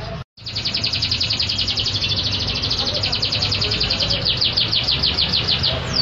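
Yellow domestic canary singing loudly: a long, fast trill of evenly repeated high notes that turns, near the end, into slower notes that each sweep downward.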